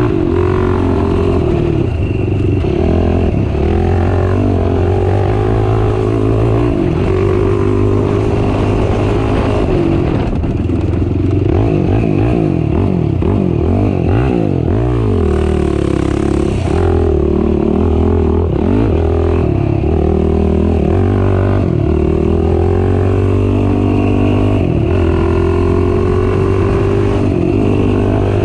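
Race ATV engine running hard through the gears, its pitch rising and falling over and over as the throttle opens and closes. The pitch swings quickly up and down around the middle.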